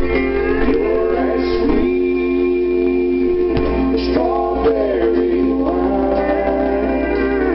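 A country song playing, with singing over guitar.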